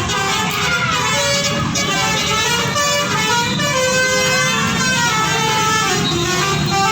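Bus 'telolet' musical horn playing a tune of short held notes that step up and down in pitch, over the steady running of a bus engine.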